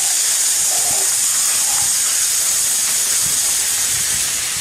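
Two plastic cola bottles erupting in foam fountains: a loud, steady hiss of spraying fizz.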